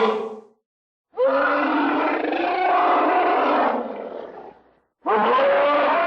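Tyrannosaurus rex roar sound effects. One roar trails off at the start and is followed by a moment of silence. A roar of about three seconds, opening with a rising sweep, then fades out, and another roar starts about five seconds in.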